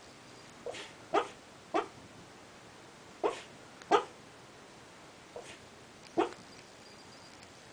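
A dog barking in its sleep while dreaming: about seven short, separate woofs and yips at uneven intervals.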